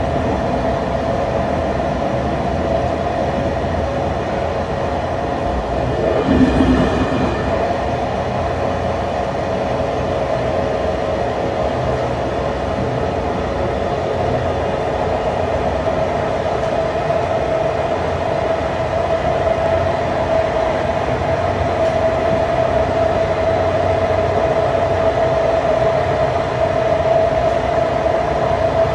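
Train heard from aboard, hauled by a TCDD DE 24000 diesel-electric locomotive: a steady running drone with a held mid-pitched tone over a low rumble. There is a brief louder surge about six seconds in.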